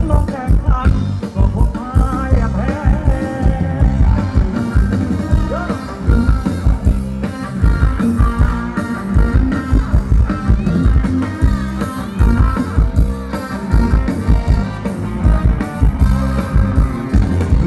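Live Thai ramwong dance band playing loud through the PA, with a steady drum beat, bass and a singing voice over it.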